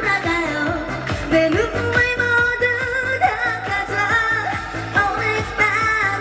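A woman singing a Korean song over music with a steady beat.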